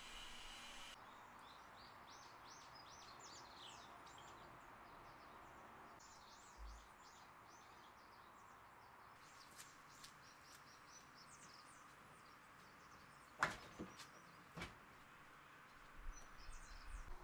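Faint outdoor ambience with small birds chirping in clusters of short, rapid chirps. Two sharp knocks about a second apart come three-quarters of the way through.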